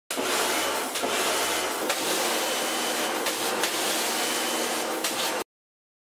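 Loud steady rushing noise, like a spray or a running machine, that cuts off suddenly about five and a half seconds in.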